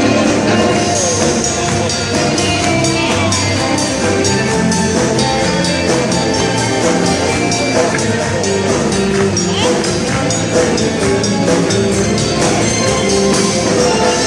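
A band playing a song with a steady beat and jingling, tambourine-like percussion, with no clear vocal line.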